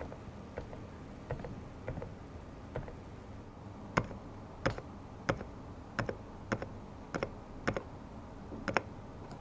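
Keys of an Epomaker TH108 V2 Pro silent mechanical keyboard being pressed one at a time, each a short muted click. The first few are soft; from about four seconds in they are firmer, a little under two a second.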